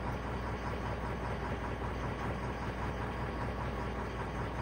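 Isuzu 4JJ1 four-cylinder common-rail diesel engine idling steadily. The engine has a stored fuel rail pressure sensor circuit fault (P0190).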